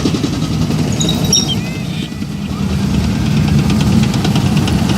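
Battery-powered toy military vehicle playing its recorded engine sound effect through a small speaker: a steady low engine rumble with a fast rattle over it.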